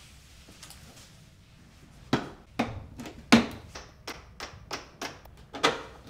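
Plastic pet carrier's side fasteners being undone by hand: a run of sharp plastic clicks and taps, about three a second, starting about two seconds in.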